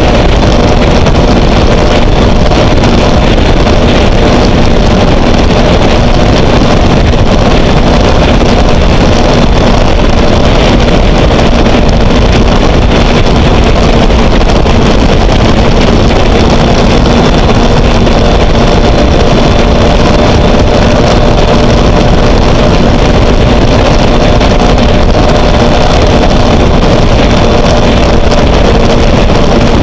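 Caterpillar gas turbine of a Sanger race boat running steadily underway: a high, steady turbine whine over a loud, constant rush of noise.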